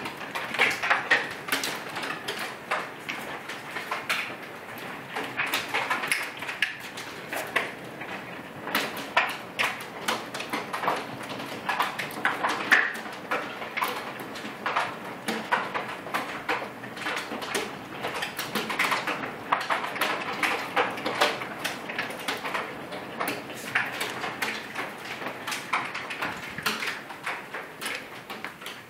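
Hailstones pelting the house and patio: a dense, uneven clatter of many small impacts, with some louder hits standing out, heard from inside the house.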